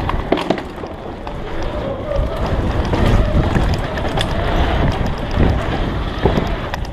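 Mountain bike ridden fast: wind buffeting the camera's microphone over the rumble of tyres rolling on the track, with a few sharp knocks and rattles from the bike.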